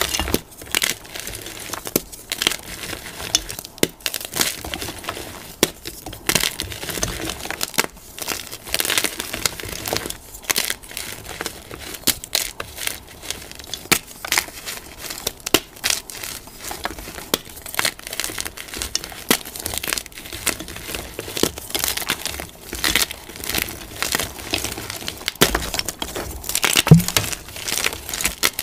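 Blocks of plain gym chalk being crushed and crumbled between bare hands: dense, irregular crunching and crackling with powdery rubbing, and one louder crunch near the end.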